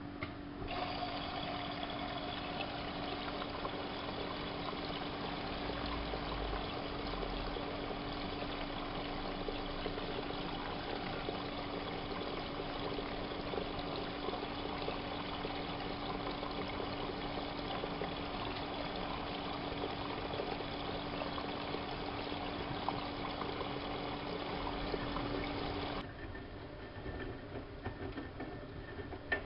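Siemens Siwamat IQ washing machine taking in water: a steady rush of water into the drum with a constant hum from the inlet valve. The water stops abruptly near the end, and the machine goes quieter with a few clicks.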